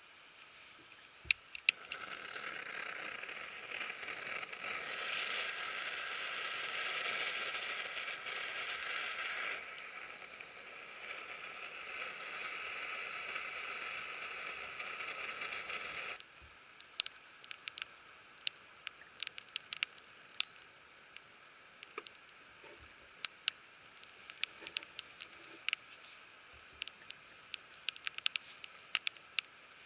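A steady hiss for about the first half, which cuts off suddenly, then scattered sharp crackles and pops of a wood fire burning.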